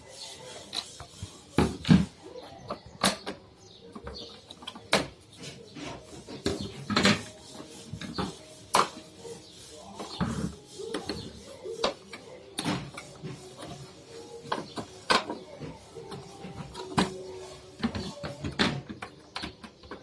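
Irregular clicks and knocks of a vacuum cleaner's casing and parts being handled and unscrewed as it is taken apart for repair.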